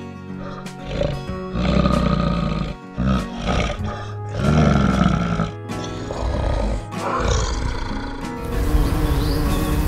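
Several low, rough growls from a brown bear over steady background music. Near the end a bee's buzzing takes over.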